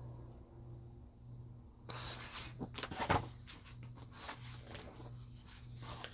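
Paper rustling and crackling as a large picture book is handled and its page turned, the sharpest crackle about three seconds in. A faint low hum runs underneath.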